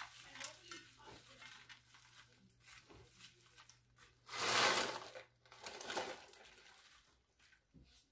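Frozen peas poured from a bag into a frying pan and stirred in with a silicone spatula: the bag crinkles and the peas rattle into the pan, loudest in a burst about four and a half seconds in.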